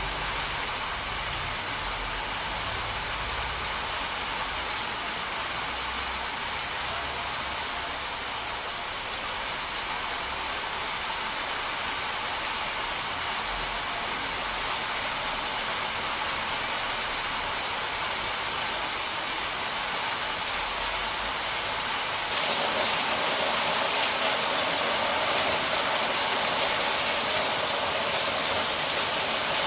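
Rain falling steadily, a dense even hiss that abruptly gets louder about three-quarters of the way through.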